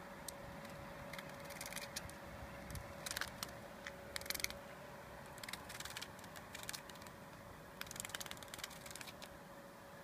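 A floury baker cicada (Aleeta curvicosta) buzzing its wings against concrete in about six short bursts of rapid rattling, the longest near the end, as it struggles and fails to take off.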